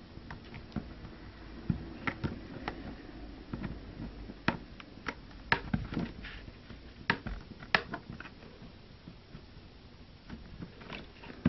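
Irregular small clicks and scrapes of a 1N4937 diode's thick wire legs being worked into the holes of a plastic solderless breadboard, the stiff leads hard to push in.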